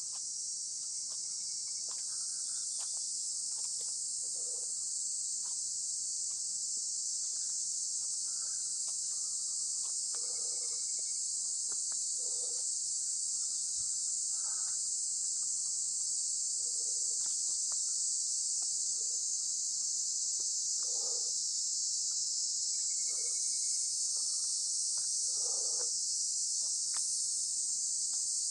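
A steady, high-pitched chorus of insects droning without a break, with soft footsteps crunching on dry leaf litter every couple of seconds.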